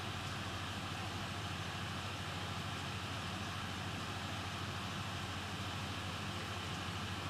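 Steady background hiss with a low, even hum and no distinct events.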